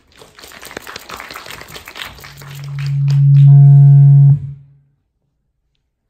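Hall applause with many hands clapping for about three seconds. Overlapping it, a low steady howl of microphone feedback through the PA swells to the loudest point and then cuts off suddenly.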